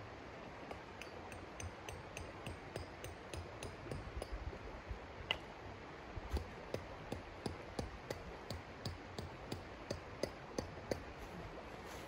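A steady series of sharp knocks, about two or three a second, like hammer or chopping strokes, with a slight ring. They grow stronger about six seconds in.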